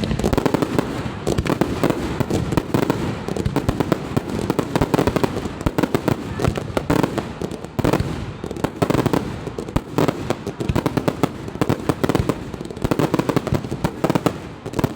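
Fireworks display: a dense, unbroken run of bangs and crackling from exploding shells, many a second, from start to finish.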